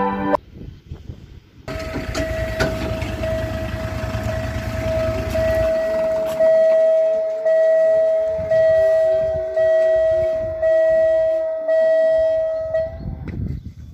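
Level-crossing warning signal ringing with a steady high tone, which starts to pulse about once a second about six seconds in, while the barrier arm lowers; under it a lower tone slowly falls in pitch as the arm comes down. A short end of music comes first.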